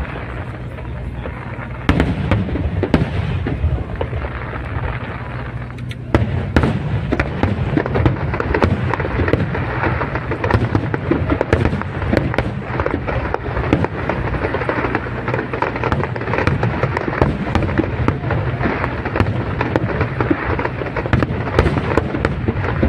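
Aerial fireworks display: a continuous barrage of shell bursts and crackling over low rumbling booms, growing much denser about six seconds in.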